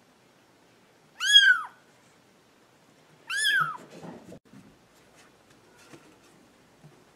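Kitten mewing twice, two short high-pitched mews that rise and then fall in pitch.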